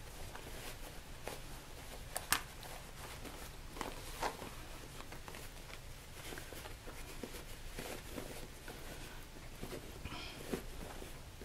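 Quiet rustling and crinkling of fabric as a sewn zippered bag is worked inside out by hand through the opening in its lining, with a few faint clicks and taps along the way.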